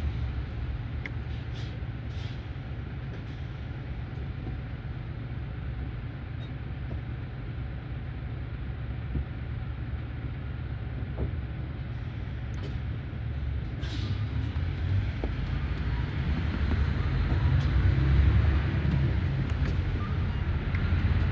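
Coach bus engine and road noise heard from inside the passenger cabin: a steady low rumble that grows louder about two thirds of the way in, with a few faint clicks.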